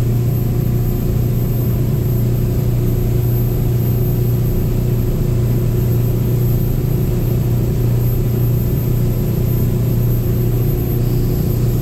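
Albin 28 TE's inboard engine running steadily at about 3,500 rpm under way, heard at the helm as an even low drone. The run is smooth, with no vibration.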